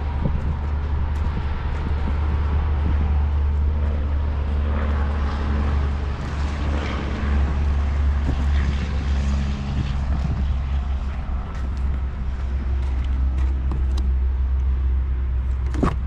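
A heavy vehicle's engine running steadily: a low, continuous rumble. A single sharp knock comes near the end.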